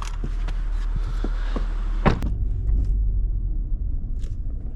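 A car door shuts with a single sharp knock about two seconds in. A low, steady car engine rumble runs under it and sounds duller and stronger once the door is closed.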